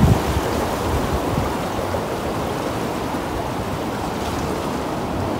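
Sea waves washing steadily against shoreline rocks, a constant rushing noise with a brief low rumble at the very start.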